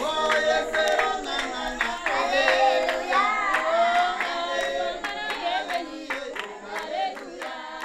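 A group of voices singing together over a steady beat, growing quieter toward the end as the song fades out.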